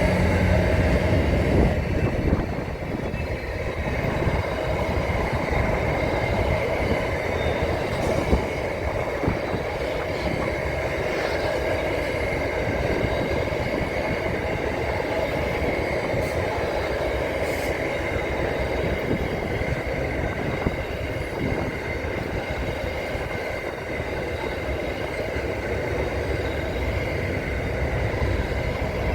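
A train running on rail: a steady rumble with sustained high-pitched tones over it, without a break.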